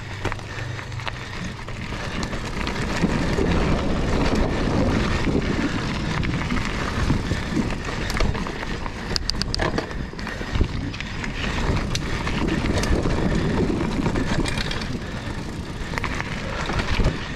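Mountain bike ridden along a sandy, root-covered trail: steady tyre and wind noise that swells from about three seconds in. Sharp knocks and rattles come around the middle and again near the end as the bike goes over roots.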